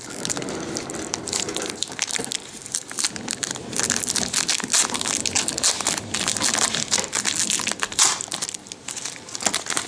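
Foil wrapper of a Yu-Gi-Oh! booster pack crinkling and crackling close to the microphone as fingers pick at it and pull it open; it tears raggedly instead of opening cleanly.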